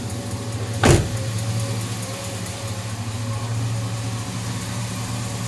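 GMC Yukon's engine idling with a steady low hum, and one sharp knock about a second in.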